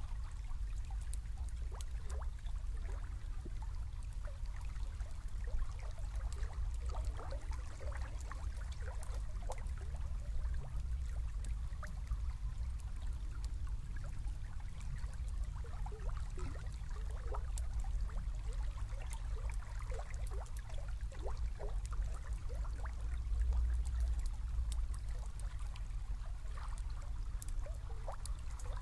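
Small river flowing: water running steadily with many small, quick bubbling sounds over a steady low rumble.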